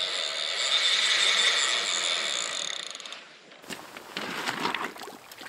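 Fly reel spinning with a steady whir as a hooked trout runs and pulls line off it. From about three and a half seconds in, a run of quick irregular clicks and crunches takes over.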